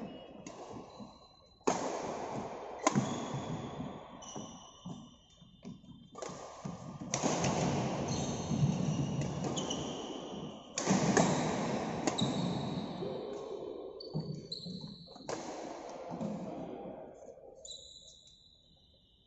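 Badminton rally in an echoing hall: rackets strike the shuttlecock several times, and shoes squeak sharply on the court floor as players lunge and change direction.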